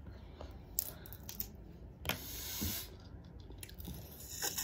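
Close-up eating sounds of crab picked and eaten by hand: wet chewing and sucking, with scattered small clicks and a hissing slurp about two seconds in.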